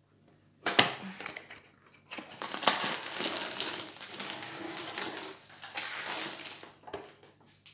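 A sharp tap just under a second in, then a plastic-wrapped rolled diamond-painting canvas crinkling and rustling as it slides out of a long cardboard box.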